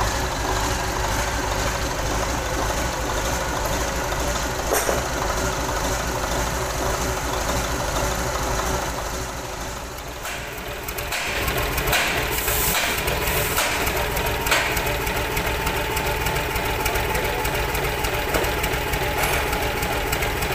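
Mitsubishi Fuso 6D22 inline-six diesel engine, freshly rebuilt and running steadily at idle on a test stand. About ten seconds in the sound dips briefly, then another truck engine carries on idling steadily.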